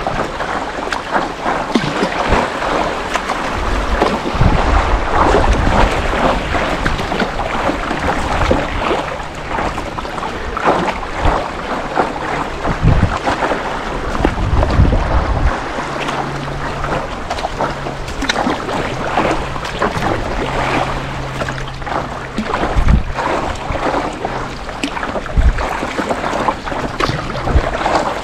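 Kayak on a river: paddle strokes and water splashing and rushing against the hull, with wind buffeting the microphone in low rumbles now and then. A faint low hum comes and goes in the second half.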